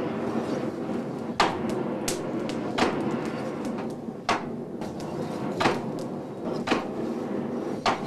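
Wooden piston box bellows pumping air into a charcoal forge: sharp wooden knocks at uneven spacing, about one a second, as the piston is pushed and pulled. A steady rush of air and burning charcoal runs underneath.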